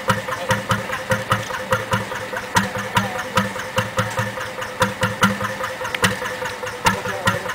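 Old narrowboat's engine idling with a slow, even beat of about four strokes a second and a sharp knock on each stroke.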